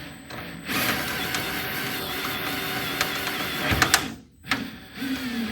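Power drill with a 5/32 bit drilling into a broken steel fender bolt. It runs steadily for about three seconds, stops with a few sharp clicks, then runs again briefly.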